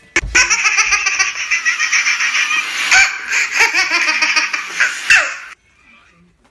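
A loud, high-pitched burst of rapid, pulsing laughter that starts sharply and stops abruptly after about five seconds.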